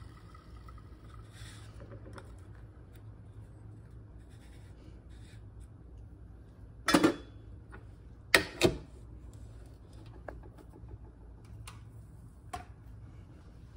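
Espresso tamper and bottomless portafilter being handled on a granite counter: a loud sharp knock about halfway through, a close pair of knocks just after, and a few lighter clicks near the end, over a low steady hum.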